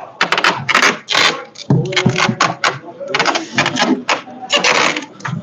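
Large cardboard shipping carton being handled and shifted: a busy run of short cardboard scrapes and clicks, with voices in the background.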